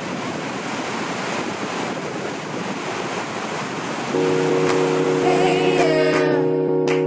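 Steady roar of big whitewater rapids. About four seconds in, music with held chords comes in, and a singing voice joins about a second later.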